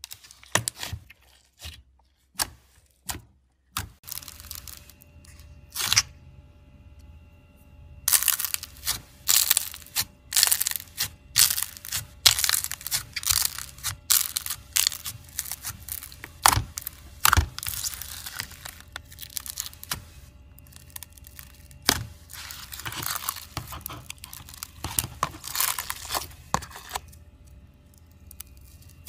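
Hands pressing and squeezing clear glitter slime, making sharp clicks and crackles. The clicks are sparse at first, then come in dense crackling bursts from about eight seconds in.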